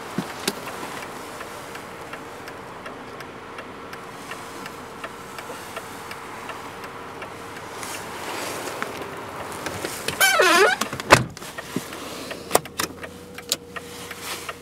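Passenger-car door being handled: small clicks, then a short warbling squeak about ten seconds in, followed at once by a heavy thump as the door shuts. All of it sits over a steady low hum.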